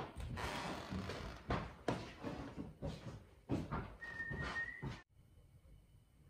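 Irregular knocks and rustling handling noise, with a short high squeak about four seconds in; the sound then cuts off abruptly to faint room tone.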